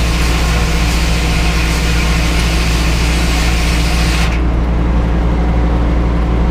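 A large engine idling steadily with a low, even throb.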